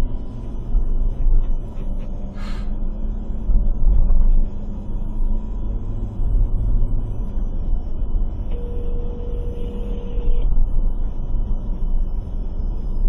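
Steady low rumble of a car driving, heard from inside the cabin. About two-thirds of the way through, a phone rings once: one steady ringing tone lasting about two seconds.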